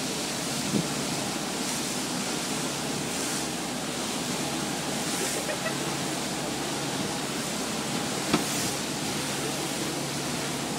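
Motor boat under way: a steady engine hum under the rushing of its churning wake, with wind on the microphone. One sharp click about eight seconds in.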